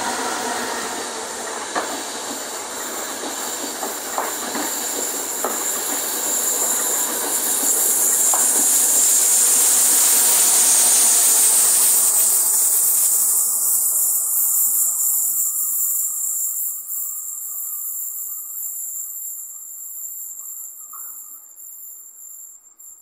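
Passenger train hauled by an FS E.402B electric locomotive passing through a station: steady rolling wheel noise with a few sharp clicks over rail joints and a high hiss that swells toward the middle. The sound then fades away as the train recedes, leaving a faint steady high chirring of insects near the end.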